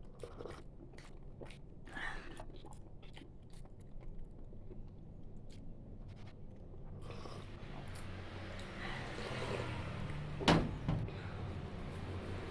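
Chewing and mouth clicks while eating a steamed bun, then a rising rush of steady noise with one sharp knock near the end.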